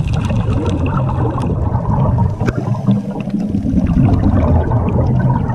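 Underwater sound through a camera's housing just below the surface: a muffled low rumble of moving water and divers' exhaled bubbles, with scattered small clicks and crackles.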